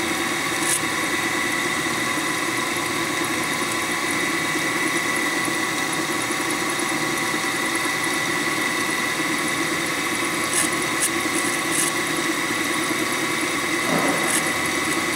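Eldorado M75-1061 gun drilling machine running a cycle: the spindle turns at speed while the servo feeds, making a steady mechanical hum with a high whine. The machine is running dry, with no coolant or oil pump. A few faint clicks sound near the end.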